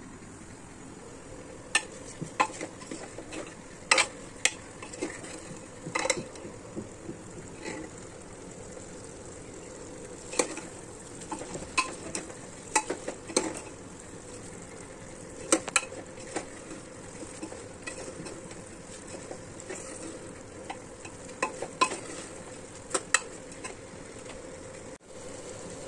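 Metal ladle stirring lentils and spices in a pressure cooker, knocking and scraping against the pot in irregular clinks, over a steady faint sizzle of the dal roasting on low flame.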